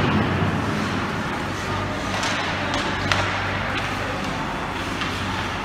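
Ice hockey game sounds over a steady rink hum: a few sharp clacks of sticks and puck, the strongest about three seconds in.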